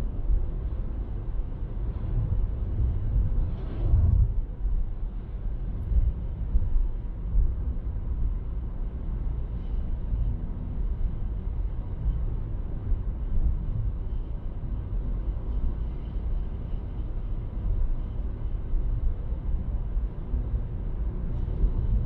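Steady low rumble of a car driving along a road, with a brief louder swell about four seconds in.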